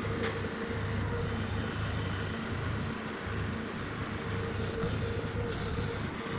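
Tractor engine running steadily at low speed.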